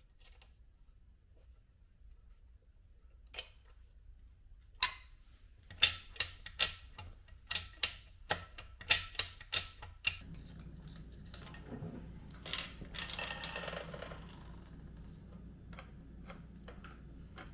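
Sharp metal clicks and clinks of hand tools and small engine parts while fitting the gear shift lever. A few isolated clicks come first, then a quick, irregular run of them, then a faint steady hum.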